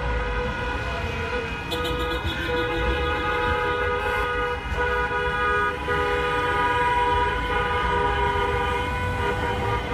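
Many car horns sounding together in long, overlapping blasts, their pitches changing as different horns start and stop, over the low rumble of slow traffic.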